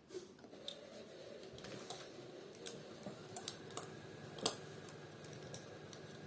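Faint, irregular clicks and taps of small plastic parts being handled while a pedometer's battery holder is fitted, with one sharper click about four and a half seconds in.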